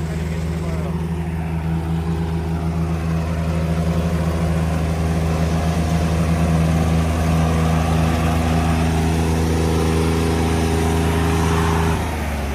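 Diesel engines of a John Deere and a Sonalika tractor running hard and steady as the two pull against each other in a tug-of-war. The engine note drops near the end.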